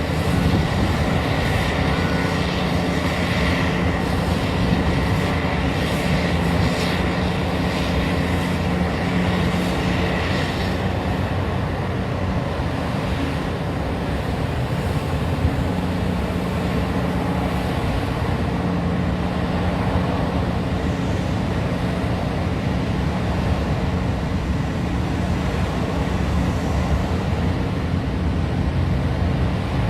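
Mining excavator's diesel engine running steadily under load, with a rattling metallic clatter that eases off about ten seconds in.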